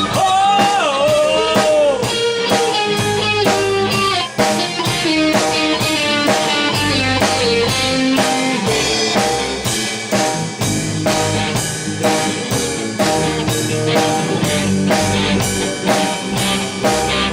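Rock band playing: guitar over a drum kit keeping a steady beat, with a melody line that slides and wavers in pitch near the start.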